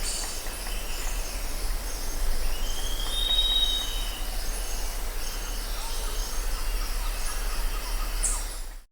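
Forest ambience: birds whistling and chirping at several pitches over a steady background hiss, with one longer arching whistle a few seconds in. It cuts off abruptly just before the end.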